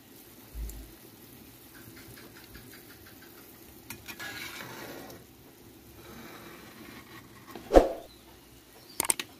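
Kithul palm sap boiling hard in an aluminium pot over a wood fire: a steady low bubbling and pattering with faint crackles. Near the end comes a sudden thump, then a few sharp clicks, the sound effects of a subscribe-button animation.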